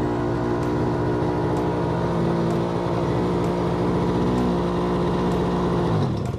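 Small two-stroke mini bike engine, running on its new carburetor at a steady speed. Near the end it winds down and stops suddenly.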